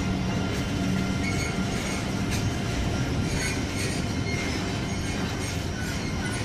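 A train running on the track: a steady rolling rumble of wheels on rail, with scattered clicks and brief high wheel squeals.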